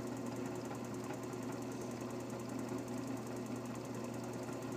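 Vacuum pump running steadily with a fast, even chugging rattle and a low hum as it pumps down a bell jar.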